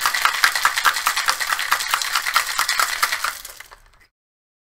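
Ice cubes rattling inside a metal cocktail shaker being shaken hard and fast, a dense rapid clatter that fades out and stops about three and a half seconds in.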